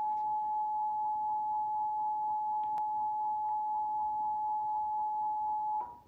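Emergency Alert System attention tone: a single steady, high electronic tone that signals a tornado warning, cutting off abruptly near the end.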